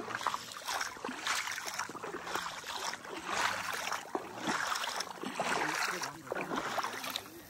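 Footsteps splashing and sloshing through shallow water over a salt flat, about one step a second.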